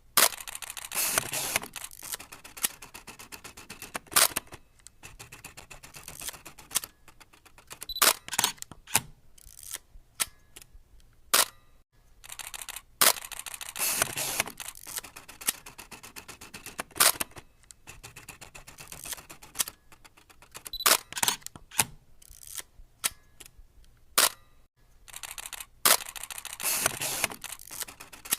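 Film-burn transition sound effect: the mechanical clicking and whirring rattle of an old film camera or projector. Fast rattling runs alternate with sharp single clicks, and the sequence loops about every 13 seconds.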